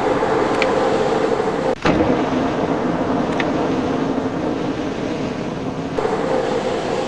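Metal lathe running under cut, a steady mechanical hum and noise from the spindle and tooling, briefly broken about two seconds in.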